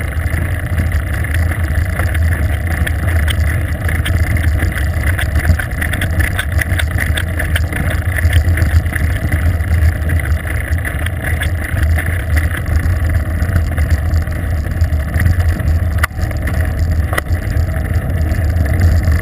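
Wind and road noise from a moving bicycle, picked up by a bike-mounted GoPro camera: a steady low rumble, with a couple of brief knocks near the end.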